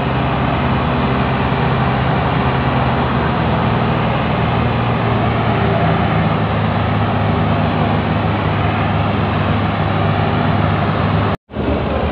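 Several farm tractor engines running hard together under heavy load, hauling a stuck, overloaded sugarcane trolley: a steady, dense engine drone. The sound cuts out for a moment near the end.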